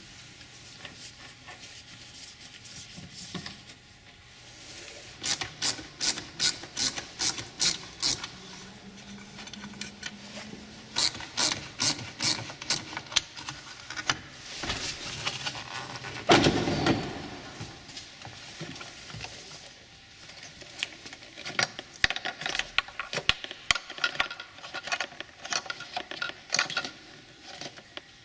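Runs of sharp, evenly spaced clicks, about three a second, from a ratcheting hand tool backing out the screws that hold a Toyota RAV4's rear bumper fascia, with plastic handling noise and one loud knock about sixteen seconds in.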